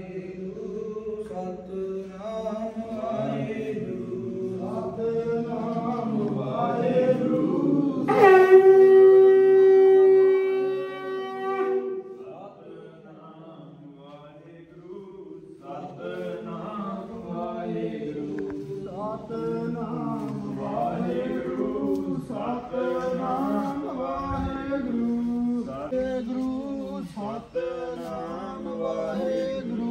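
Men's voices chanting together, broken about eight seconds in by one long steady horn blast lasting about four seconds, the loudest sound; after a short lull the chanting picks up again.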